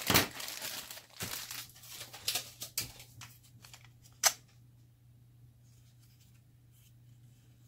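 A sealed plastic Happy Meal toy bag being torn open and crinkled by hand, with a sharp crackle a little over four seconds in.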